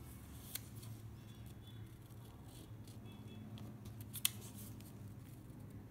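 Origami paper being folded and creased by hand: faint rustling with a few short, sharp crackles, the loudest about four seconds in.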